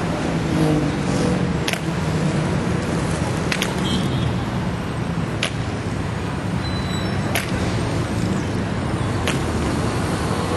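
Steady city traffic noise, with a sharp click or tap about every two seconds.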